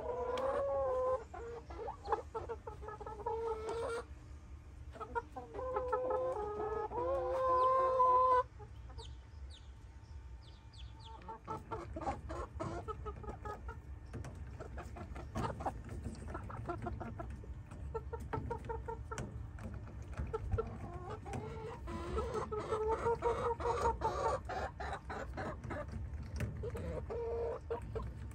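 Hens clucking, with long wavering calls in the first eight seconds and again a little past the twenty-second mark, and a run of short clicks in between.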